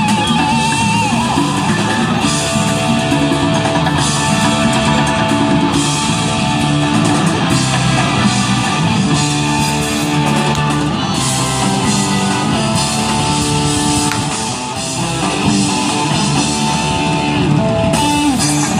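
A live rock band playing: guitars over a drum kit, with sustained melody notes.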